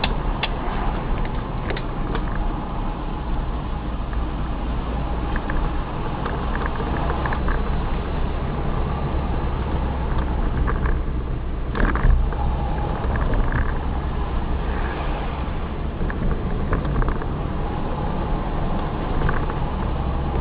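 Car engine and tyre noise heard from inside the cabin while driving, with occasional small clicks and a louder knock about twelve seconds in.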